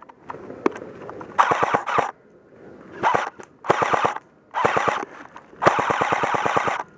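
Airsoft rifles firing full-auto, about five rapid bursts of sharp clicking shots, the longest burst running over a second near the end.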